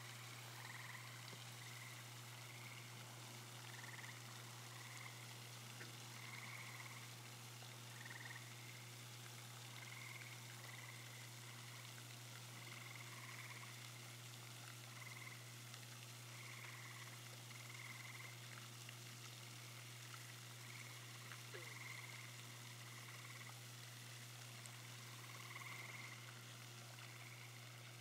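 Faint frog calls: short calls repeating irregularly every second or two, over a steady low hum.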